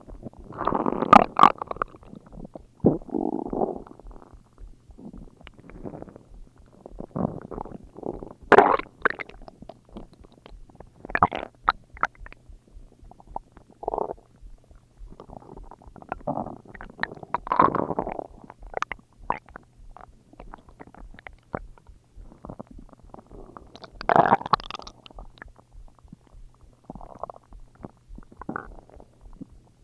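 Human stomach growling and gurgling in irregular bursts, some with sharp pops and squelches. The loudest bursts come about a second in, near nine seconds and around twenty-four seconds.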